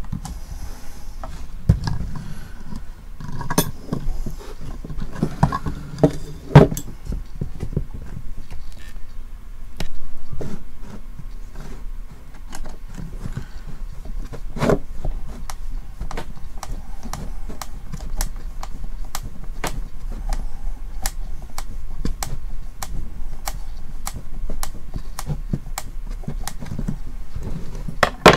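Hand screwdriver and small metal tools working on a small plastic portable speaker box, with clicks, scrapes and knocks against the case. In the second half the sound settles into a run of light, even clicks, a little under two a second.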